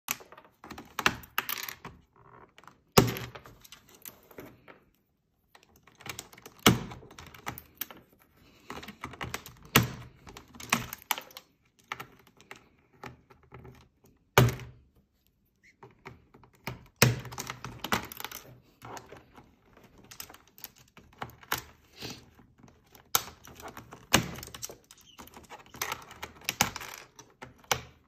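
Plastic keys of an Asus computer keyboard clattering and clicking as a caique parrot bites and pulls at the keycaps and a hand presses keys. Irregular runs of taps and clicks, with several louder knocks.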